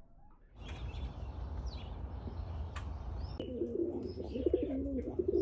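Domestic pigeons cooing, a run of wavering low coos starting a little past halfway, over a steady low rumble, with a few small high chirps.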